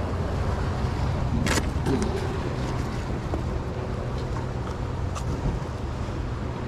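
Steady low outdoor rumble, with one sharp click about a second and a half in and a few lighter clicks just after, as a small flip-top plastic case is handled.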